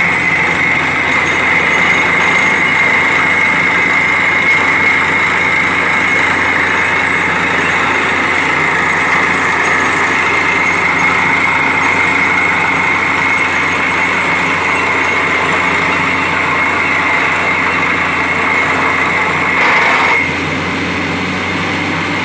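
A borewell drilling rig running steadily with a continuous high whine over its engine noise. About twenty seconds in, the whine stops and the noise drops a little lower.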